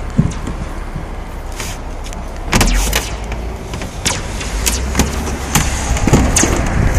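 Electric standing-seam roof seamer: clicks and knocks of metal as it is set on the panel seam, then about two and a half seconds in its motor starts with a steady low hum while it runs along the heavy-gauge seam.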